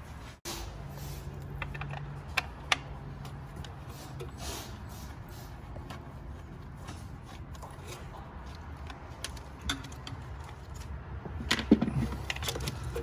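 Scattered light clicks and metallic clinks of a Torx driver and wiring being worked loose from a bracket in a car's engine bay, a few more close together near the end, over a steady low hum.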